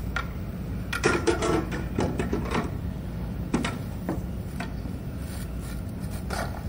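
Scattered rustles and light knocks of handling, most of them in a cluster from about one to two and a half seconds in, with a few single ones later, over a steady low hum.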